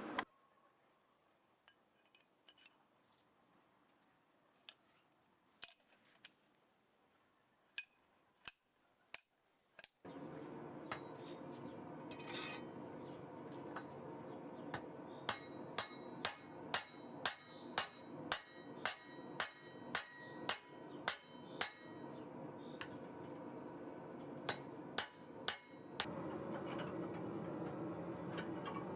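Hammer strikes on steel, about two a second with a bright metallic ring, riveting the pin that joins the two halves of leaf-spring blacksmith tongs. A few scattered taps come before, and a steady rushing noise runs under the blows.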